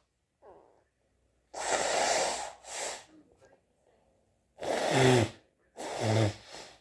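A person sneezing again and again: four loud, breathy bursts in two pairs. In the last two the voice slides down in pitch.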